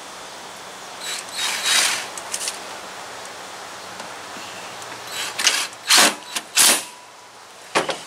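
Cordless drill/driver running in short bursts as it drives screws into the plastic case of a window air conditioner, a group of bursts about a second in and several more in the second half.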